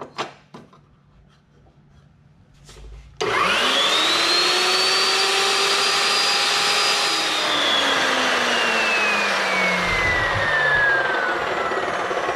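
Evolution S380CPS cold-cut metal chop saw cutting square steel tubing. A few light clicks of the vise and work handling come first; about three seconds in the motor starts abruptly with a whine that climbs quickly to a steady pitch, and over the last five seconds the whine sinks steadily in pitch while the saw stays loud.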